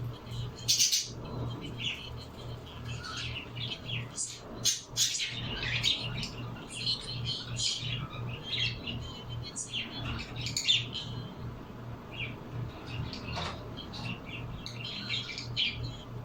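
Several birds chirping and squawking in quick, overlapping short calls, with louder squawks about a second in, around five seconds and near ten seconds. A low hum pulses evenly underneath.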